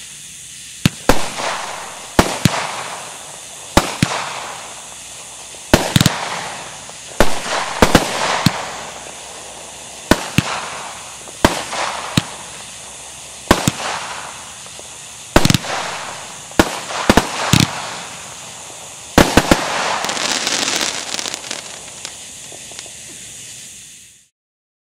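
A 16-shot 500g consumer fireworks cake firing shot after shot, a sharp bang about every one and a half to two seconds, each followed by a trail of crackling. Near the end the shots come close together into a dense crackling finale, which stops abruptly.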